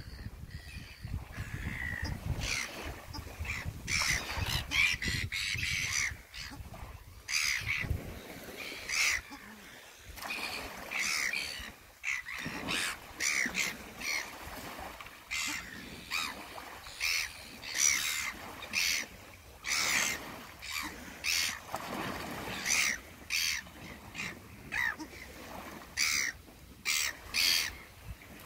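Red-billed gulls squabbling, their short calls coming about once a second, each on its own.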